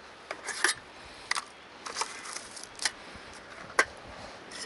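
Dry twigs snapping and crackling: about eight sharp, separate snaps scattered irregularly.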